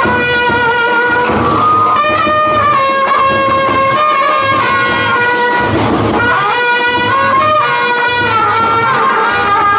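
Tamil street brass band: a trumpet plays a held, stepping melody over a steady beat of big bass drums and hand drums.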